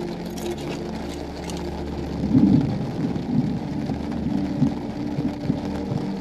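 Storm noise: rain with a low, gusty rumble that grows louder about two seconds in.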